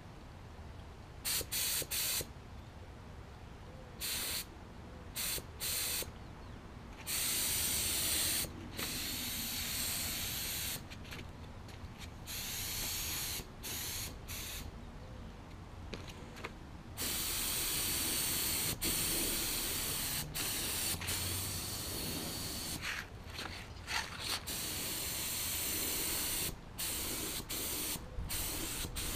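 Gravity-feed air spray gun spraying black acrylic enamel onto steel wheels. The air hiss switches on and off with each trigger pull: a string of short bursts, then a longer pass of several seconds in the second half.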